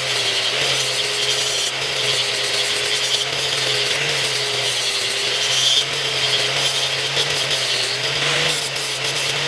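Electric power tool, most likely a grinder, running steadily against metal with a gritty rubbing noise. The motor's pitch dips and recovers slightly as the tool is pressed into the work.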